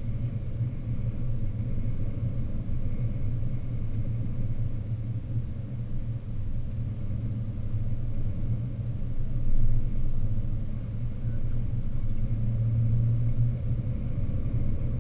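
Steady low rumble of a vehicle driving on a highway, with one brief louder swell about nine and a half seconds in.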